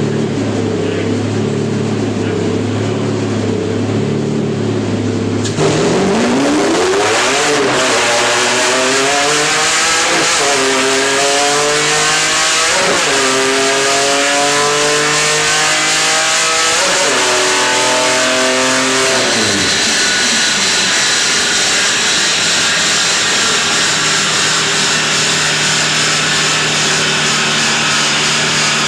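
Lamborghini engine running on a chassis dynamometer: a muffled, wavering idle, then about six seconds in it gets louder and revs up sharply four times, the pitch easing a little after each climb. It falls back near twenty seconds and settles into a steady run.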